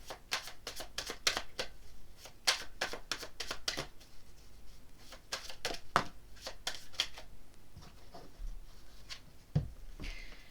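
A tarot deck being shuffled by hand: quick runs of card flicks and clicks coming in spurts, thinning out near the end.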